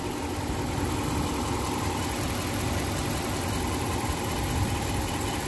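HEMI V8 engine idling with a misfire. The mechanic puts the misfire down to the engine having gone a long time without running.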